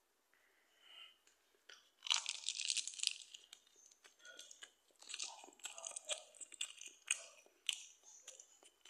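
Thin plastic bag crinkling around a bun as it is handled, in two crackly stretches: a short one about two seconds in and a longer one from about five to eight seconds in.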